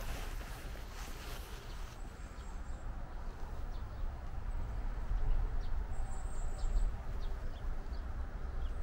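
Rural outdoor ambience: a steady low rumble with a few faint, brief bird chirps.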